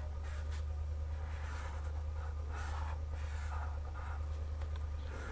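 Felt-tip brush pen scraping across paper in a series of short colouring strokes, over a steady low hum.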